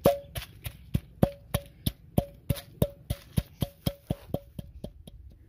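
Wooden pestle pounding dry-roasted whole spices in an unglazed clay mortar: a steady run of knocks, about three to four a second, each with a short ring from the clay bowl. The strokes get softer and stop just before the end.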